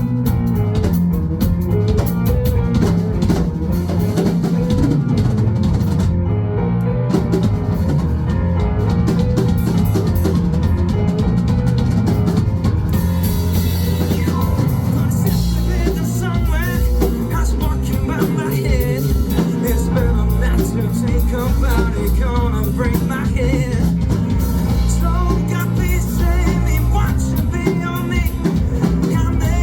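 Live band playing an upbeat funk jam: drum kit, bass and electric guitar, with singing coming in about halfway through.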